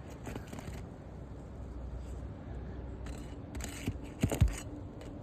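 Scrapes and a few sharp clicks as rusted roofing nails are pried out of asphalt shingles, with the loudest knocks about four seconds in.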